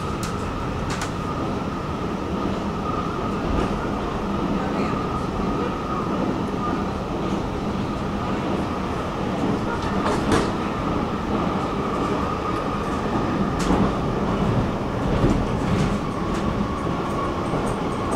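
Stockholm metro train running between stations: a steady rumble of wheels on rail with a constant whine, broken by a few sharp clicks.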